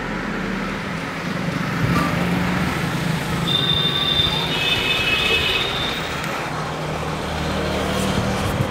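Steady road traffic noise with a low engine rumble. A high-pitched whine or squeal sounds for about two seconds midway.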